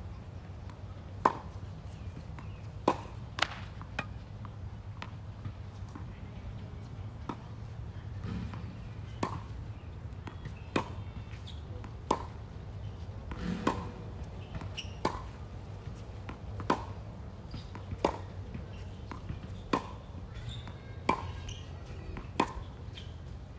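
Tennis rally: tennis balls struck with racquets, a sharp pop about every second and a half, some hits louder than others, over a steady low hum.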